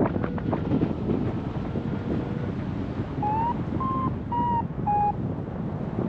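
Wind rushing over the microphone in flight under a paraglider. A little past halfway come four short beeps from a flight variometer, each at a slightly different pitch; beeping of this kind signals that the glider is climbing in lift.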